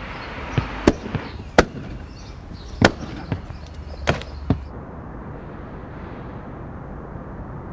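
A string of sharp pops or bangs, about eight of them at irregular spacing, that stop about four and a half seconds in, leaving a steady low background rumble.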